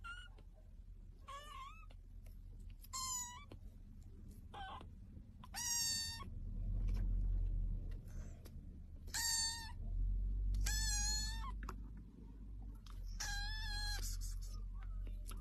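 A young kitten meowing: about eight short, high-pitched mews spread over the stretch, over a low rumble.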